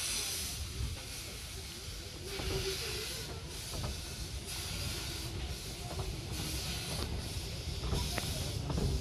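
Narrow-gauge Hunslet saddle-tank steam locomotive hissing steam in repeated pulses, about one a second, over a steady low rumble from the train.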